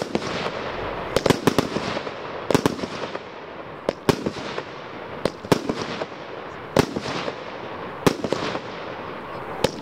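Royal Fireworks 'Modern Age' consumer firework firing shot after shot. Sharp bangs come about once a second or a little more, some in quick pairs, over a continuous crackling hiss from the bursting stars.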